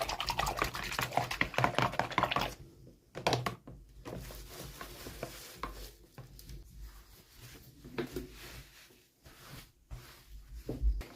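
Toy packaging and small plastic doll pieces being handled. A dense crackling, rustling sound stops about two and a half seconds in, then scattered light clicks and knocks follow.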